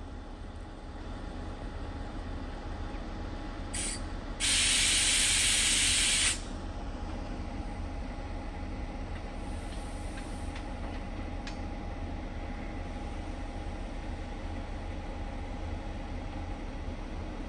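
Compressed air blowing off from a train's air brake system: a brief puff, then a loud hiss lasting about two seconds. Under it is the steady low rumble of idling diesel locomotives.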